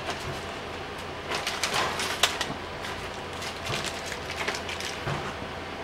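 Small metal spacer sleeves for a transmission pan gasket clicking lightly against each other as they are handled, a scatter of faint clicks in two clusters over a steady background hiss.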